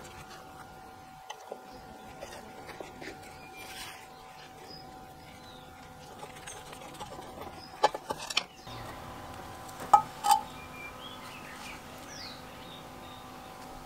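Sharp metal clicks and knocks from a vintage lawn mower's steel chain guard being worked loose with a hand tool, a cluster about eight seconds in and two louder knocks about ten seconds in, over a faint steady hum.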